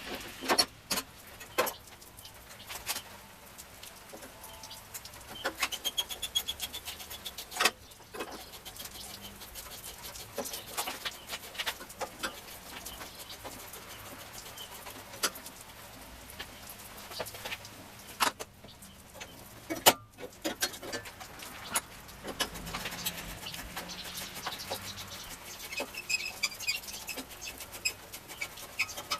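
Irregular clicks and knocks of hand work on a car body, with a sharp knock about two-thirds of the way through, and a few faint bird chirps.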